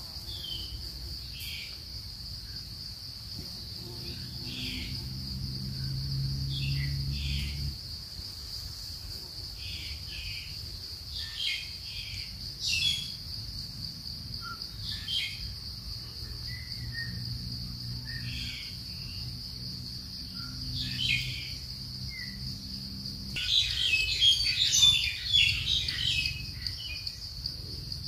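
Forest ambience: a steady high-pitched insect drone, with short bird chirps coming and going, busiest a few seconds before the end. A faint low hum rises and fades twice underneath.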